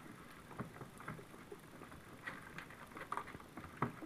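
Young puppies lapping and slurping soft food from a plate: a faint, irregular run of small wet smacks and sucks, the same noises they make when nursing, with the loudest smacks near the end.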